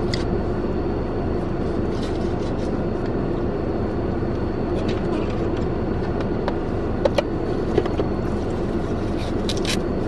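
Steady hum of a running car heard from inside its cabin. A few light clicks and taps of small objects being handled come in the second half.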